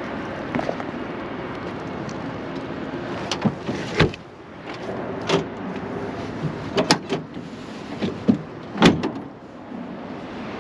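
A truck running steadily, with about half a dozen sharp clunks and knocks from about three seconds in, the loudest near the end.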